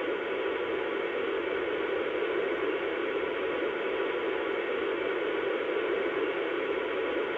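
Steady hum and hiss from an MTH O-scale subway model's onboard sound system speaker, even throughout with no change.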